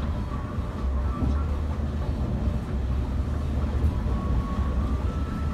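Steady low rumble inside the cabin of a Scania K360 IB coach cruising at highway speed: drone from the rear-mounted engine mixed with tyre and road noise.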